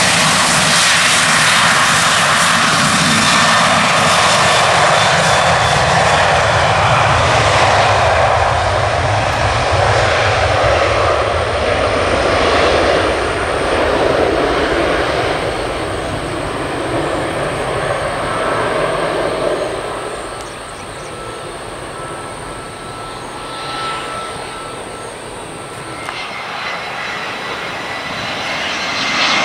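Boeing 737-700's CFM56 jet engines at takeoff thrust: a loud, steady roar that fades about two-thirds of the way through as the jet climbs away. Near the end it gives way to the quieter whine of an Airbus A319 on approach.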